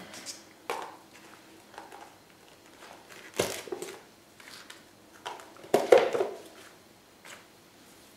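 Scattered light knocks and rustles of things being handled, with two louder clatters about three and a half and six seconds in.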